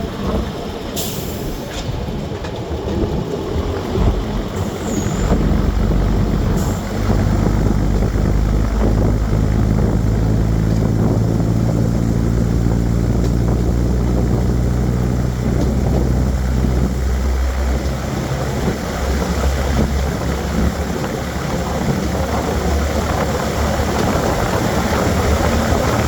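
Underfloor diesel engines of a Class 105 Cravens diesel multiple unit pulling away under power, heard from inside the carriage: a steady low engine note that climbs slowly and changes about two-thirds of the way through. A few sharp knocks sound in the first several seconds.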